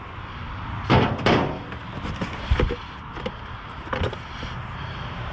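Used car parts, such as distributors and ignition coils, knocking and clunking as they are handled and set down, with half a dozen sharp knocks over a steady outdoor background noise.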